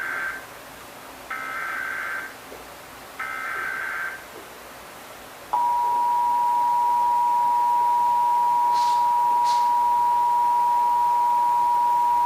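Emergency Alert System tones for a Required Monthly Test: the SAME digital header, heard as three separate data bursts about a second long each, the first already under way and ending just after the start. About five and a half seconds in, the steady two-tone attention signal starts and holds.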